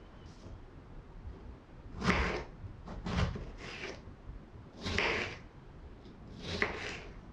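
Small kitchen knife slicing fresh strawberries on a wooden cutting board: five short, separate cuts, each blade stroke going through the fruit and meeting the board.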